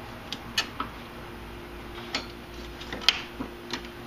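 Scattered light metallic clicks and clinks, about seven of them with the sharpest about three seconds in, as the power steering gearbox's top cover and pitman shaft are worked upward by hand. A faint steady hum runs underneath.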